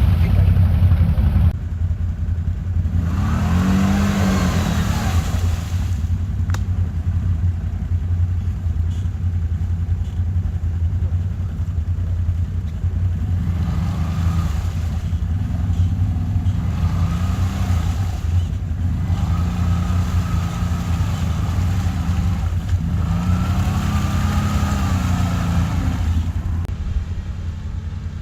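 ATV (quad bike) engines running, with the revs rising and falling again and again, once about four seconds in and repeatedly through the second half.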